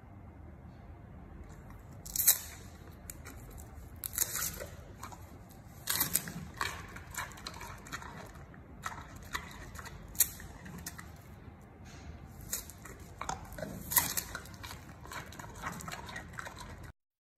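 Giant panda chewing peeled bamboo shoots close up: crisp crunches every second or two, with quieter wet chewing between them.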